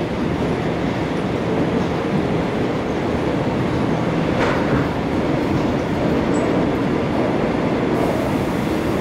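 Steady running noise inside a Seoul Metro 2000-series subway car with rheostatic control, rumbling along the track through a tunnel. A single brief click comes about halfway through.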